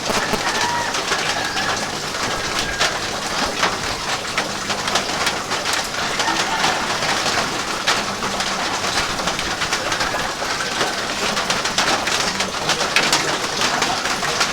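Steady rain falling, a dense patter of drops, with a pigeon or dove cooing low in the background.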